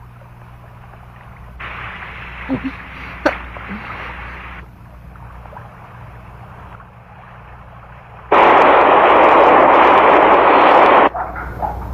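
Cartoon sound effect of a waterfall rushing, loud. It cuts in suddenly about eight seconds in and stops just as suddenly about three seconds later. Earlier there is a quieter stretch of rushing noise with a few sharp clicks, over a low steady hum.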